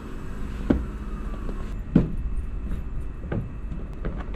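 Four dull knocks over a steady low outdoor rumble, the second the loudest, as the small outboard motor and gear are handled around the boat and the wooden stand on the pontoon.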